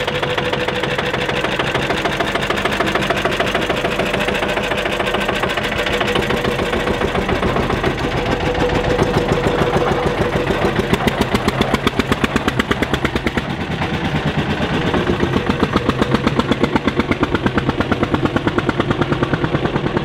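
Vintage tractor engine running under way, a fast, even putter of firing strokes that carries on throughout.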